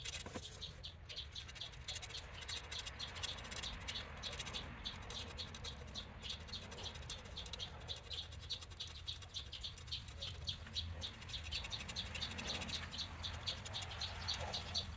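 A pointed metal tool scratching letters into the black coating of a javelin shaft: a fast run of small, sharp scratches, a little stronger in the second half.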